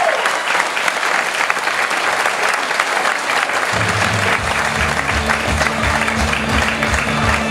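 Audience applause throughout; about halfway through, a bass-heavy backing track comes in under the clapping.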